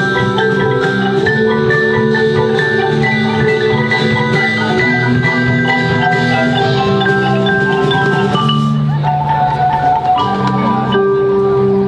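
Percussion ensemble playing a melodic piece on mallet instruments such as marimba, with overlapping ringing, bell-like notes. About eight and a half seconds in, a short swish leads into a new phrase.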